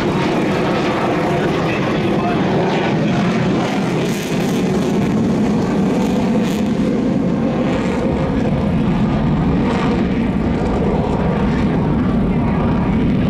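Mitsubishi F-2 fighter's single F110 turbofan jet engine in flight, a loud, steady rumble of jet noise.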